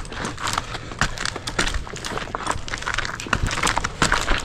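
Irregular sharp clicks and knocks over a rustling background, several a second.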